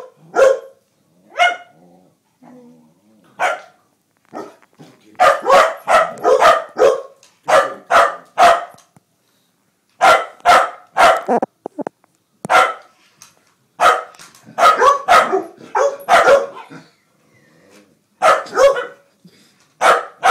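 A dog barking repeatedly at a remote-control toy car. The barks are short and sharp and come in bouts of several, with short pauses between the bouts.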